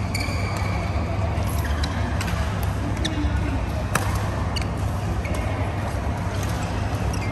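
Badminton rally: sharp racket strikes on the shuttlecock every second or so, the loudest about four seconds in, over a steady low hum that fills the hall.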